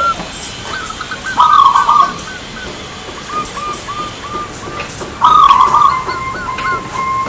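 Zebra dove (perkutut) cooing its song: strings of short rolling coos repeated several times a second, with louder runs of quick notes about a second and a half in and again about five seconds in.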